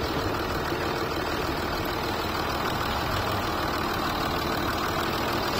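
Jaguar XF engine idling steadily, heard with the bonnet open.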